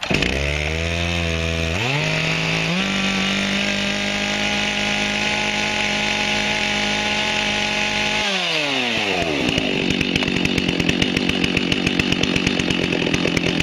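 Large Stihl two-stroke chainsaw with a ported muffler, just started: it runs low for a moment, climbs to a high, steady fast idle and holds there, then drops to a lower, uneven idle about eight seconds in.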